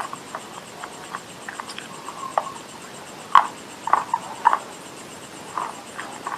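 Chewing and crunching of edible clay: irregular sharp crunches and mouth clicks, the loudest about three and a half seconds in, with a quick cluster just after.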